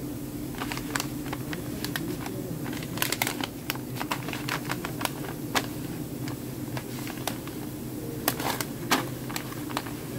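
Paper Smarties candy pouches being handled and laid on a table: irregular light taps and crinkles, over a steady low hum.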